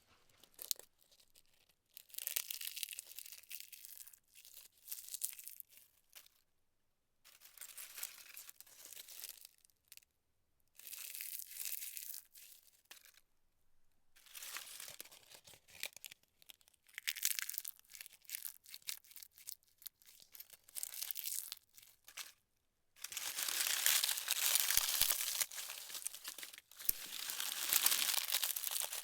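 Dry leaves crunching and crackling in irregular bursts a few seconds long, with short pauses between them. The longest and loudest run comes near the end.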